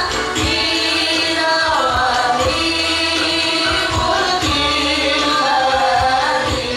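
A woman singing a melodic religious song into a microphone over amplified band accompaniment, with a steady beat of about two thumps a second.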